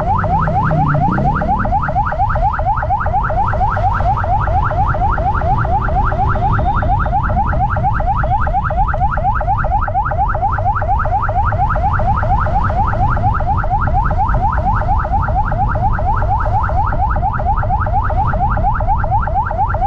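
Electronic yelp siren on a motorcycle sounding continuously, a rising sweep repeated several times a second, over the low rumble of the ride and wind.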